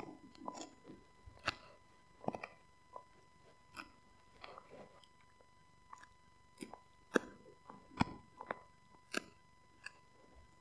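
Husky gnawing a rawhide-style chew stick: irregular sharp cracking bites, about two a second, the loudest near the end.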